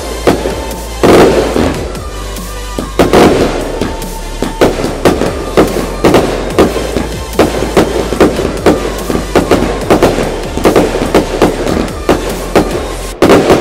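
Firework display: a rapid string of shell bursts, bangs and crackles several times a second, with music playing underneath.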